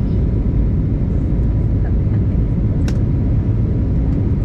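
Steady cabin roar of an Airbus A320neo in flight, engine and airflow noise heavy in the low end, with one sharp click a little under three seconds in.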